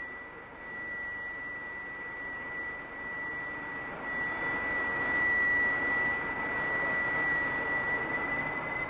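Avrocar's turbojet engines and turborotor running: a steady high whine over a rushing noise that swells about four seconds in.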